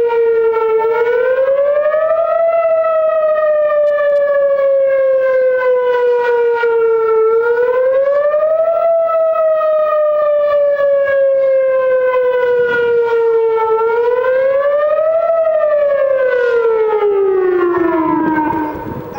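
Whelen WPS-series electronic outdoor warning siren sounding a Thunderbolt-style wail. Its pitch rises quickly, then sags slowly, three times, about every six seconds. Near the end the pitch falls lower than before and the sound drops away as the siren winds down.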